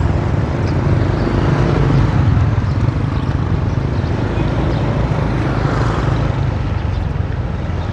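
Steady din of a busy outdoor market with motorbike engines running, a constant low rumble under scattered background noise.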